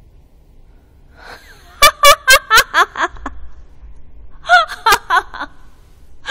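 A woman laughing in two runs of short, sharp 'ha' bursts, about four a second. The first run comes about two seconds in and the second near five seconds.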